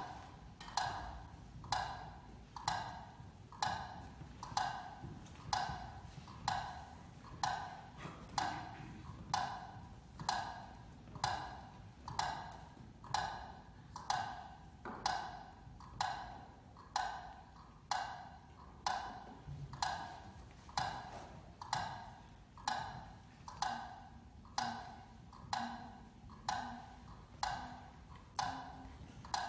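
Steady clock-like ticking, about one tick a second, each tick a hollow knock with a short ringing tail.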